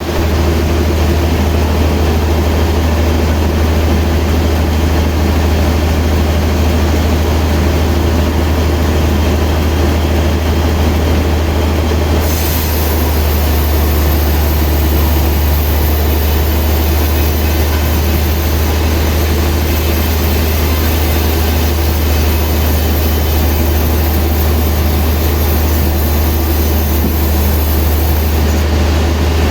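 Sawmill machinery running with a loud, steady low hum. About twelve seconds in a high hiss joins it and stops shortly before the end.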